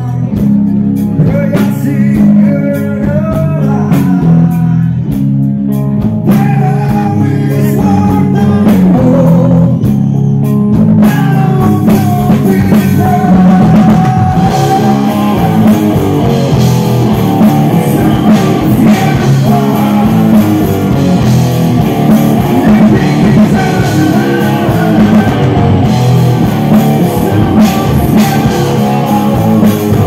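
A rock band playing live: distorted electric guitars, bass and drum kit, with a male singer. The singing is clearest in the first ten seconds or so, and the band sound grows fuller from about eleven seconds in.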